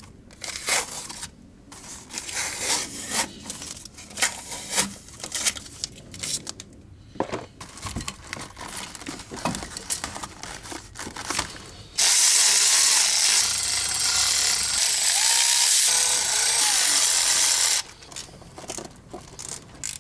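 Loose metal clinks and knocks of hand work in an engine bay while a cast exhaust header is being fitted. About twelve seconds in, a power tool runs loud and steady for roughly six seconds and stops suddenly, and then the light knocking goes on.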